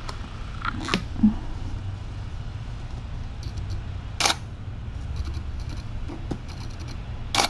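Camera shutter clicking three times, a few seconds apart: about a second in, about four seconds in and near the end, with faint small ticks between the shots.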